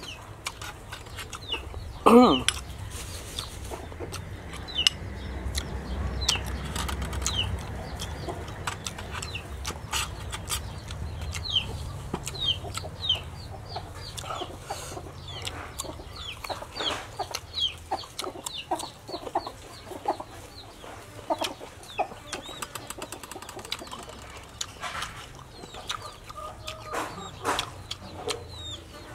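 Chickens clucking and peeping in short falling chirps, with one louder falling call about two seconds in, over crisp crunching and chewing of raw vegetables such as baby corn and cucumber.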